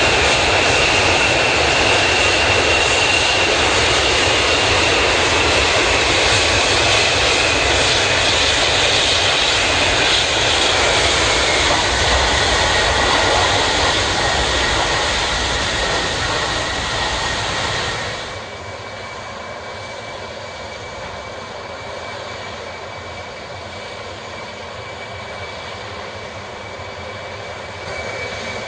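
Antonov An-124's turbofan jet engines running close by as the aircraft rolls past: a loud steady roar with a high whine that sinks a little in pitch. About eighteen seconds in, the sound drops abruptly to a quieter, more distant engine roar that still carries a steady whine.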